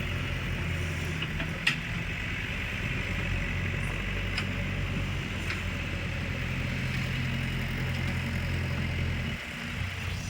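A heavy machine's diesel engine running steadily, with a single sharp click about two seconds in.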